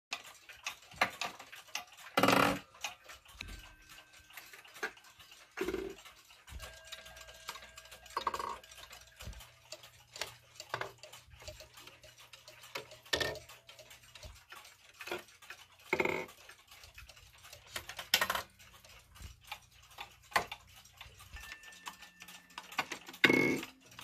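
Rack-and-snail strike trains of mechanical pendulum clocks being set off by hand as the minute hand is pushed up to the hour. Light clicks of the warning levers are followed by a few heavier thunks as the racks drop onto the snails, over the ticking of the movements.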